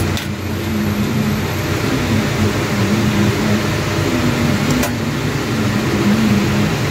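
Steady mechanical hum of a running machine with a low wavering tone, and one light metallic click a little under five seconds in.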